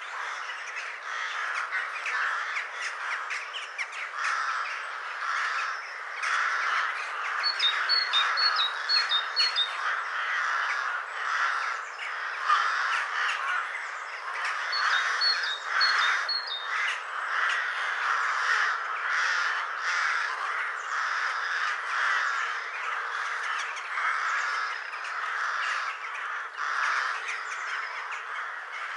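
A flock of ravens cawing continuously, with many overlapping calls. Twice, a smaller bird adds a short run of high chirps.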